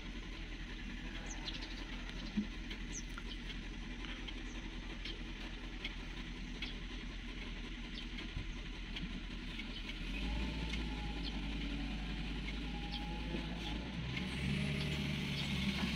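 Heavy-equipment diesel engine running steadily, growing louder and deeper about ten seconds in and again near the end as it is worked harder.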